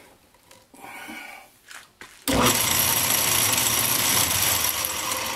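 Metal lathe switched on about two seconds in, spinning a Jacobs drill chuck mounted on a freshly made arbor. It runs steadily with a faint high whine, then starts to fade near the end as it winds down.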